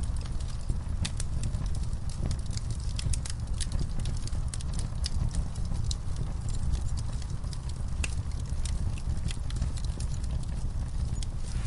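Logs burning in a fireplace: a steady low rumble of the flames with frequent sharp crackles and pops scattered irregularly throughout.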